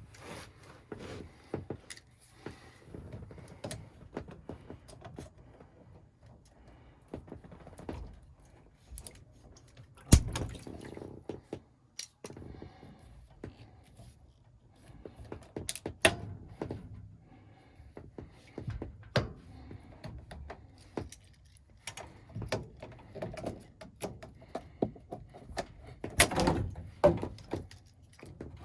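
Irregular clicks, knocks and rattles of tools and parts being handled and moved about, with a sharp knock about ten seconds in, the loudest of them.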